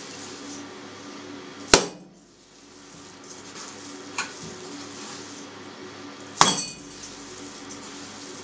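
Ball of ground chicken mince thrown down hard into a stainless-steel mixer bowl to beat it: two loud slaps about five seconds apart, the second with a short metallic ring from the bowl, and a lighter knock between them. The beating drives air bubbles out of the mince and packs it tight.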